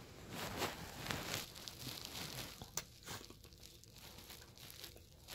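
Soft, irregular rustling of a picture book's pages being handled and turned, with a few light clicks.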